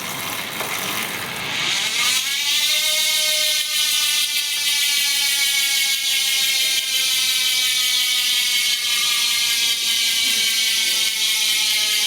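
Ratcheting freehub of a Princeton CarbonWorks Dual 5550 wheel with Tactic TR01 hubs, buzzing as the wheel freewheels. About two seconds in it settles into a loud, high, dense buzz whose pitch slowly falls as the wheel slows.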